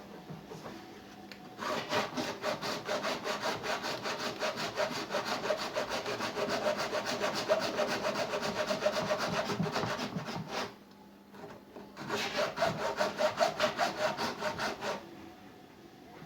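Hand saw cutting through a washing machine's sealed plastic tub in quick back-and-forth strokes, about three or four a second, the tub being split open to reach and replace the drum bearings. Two runs of sawing, the first about eight seconds long, then a short pause and a second run of about three seconds.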